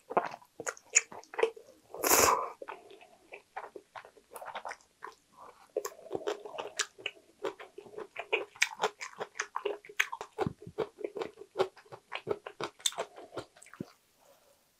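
Close-miked eating of thick, saucy jjajang ramen noodles: two loud slurps about two seconds apart near the start, then steady wet chewing with sticky mouth clicks and smacks.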